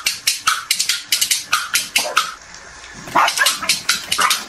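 Corgi barking in a rapid string of short, sharp barks, several a second. The barks break off briefly a little past halfway, then come back louder.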